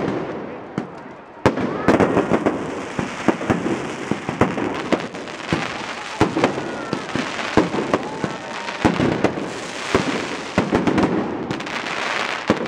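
Large bonfire of a burning falla monument crackling, with frequent irregular sharp pops and snaps over the steady noise of the flames.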